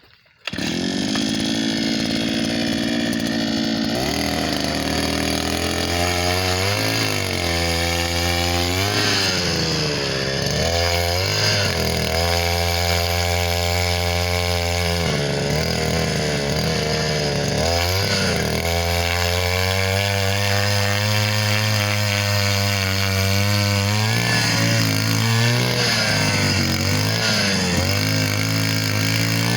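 Petrol-engined earth auger running hard, starting abruptly about half a second in. Its engine pitch repeatedly sags and recovers as the bit bores into the soil under load.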